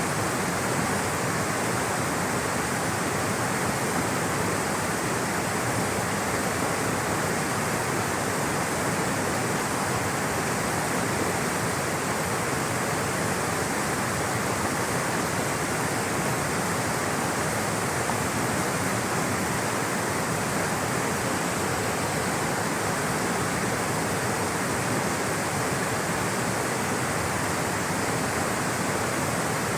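Rushing water from a stream or cascade, a steady even hiss with no pauses or changes.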